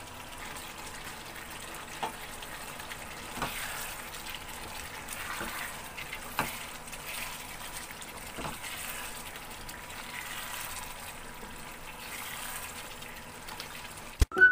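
Pork adobo simmering in its sauce in a pan, a steady bubbling hiss, with a few short knocks of a stirring utensil against the pan.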